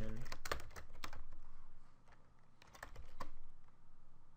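Typing on a computer keyboard: short runs of key clicks, with a brief pause about halfway through.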